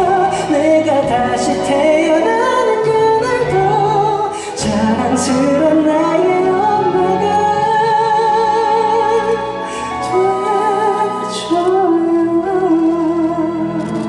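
A male singer sings a slow ballad live over an orchestra with strings. He holds long notes with vibrato, with a brief break about four and a half seconds in.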